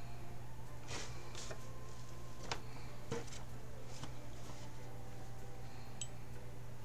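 Quiet handling sounds: a few soft clicks and light knocks as a towel is set down on the table and a paintbrush is worked in a glass water jar, over a steady low hum.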